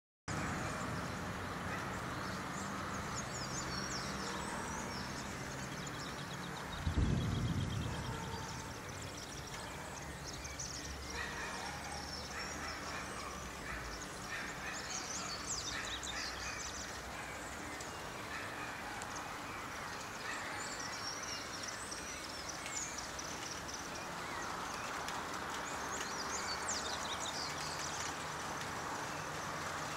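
Birds calling and chirping over steady outdoor background noise, with one short low thump about seven seconds in.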